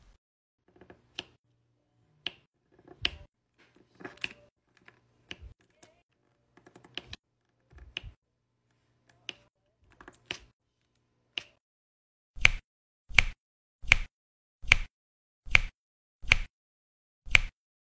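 Diamond-painting drill pen pressing resin drills onto the sticky canvas: a steady run of sharp taps, a little more than one a second, through the second half. Before that, softer irregular clicks and rustles.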